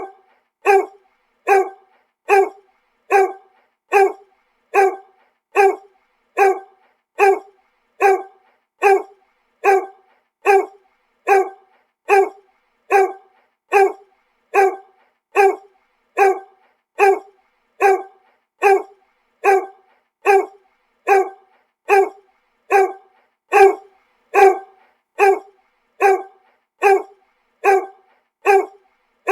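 A dog barking over and over at a steady, even pace, a little more than one bark a second, each bark short and sounding much the same.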